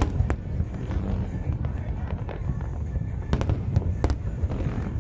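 Fireworks display: aerial shells bursting in a continuous low rumble, with sharp cracks standing out just after the start and several more between about three and four seconds in.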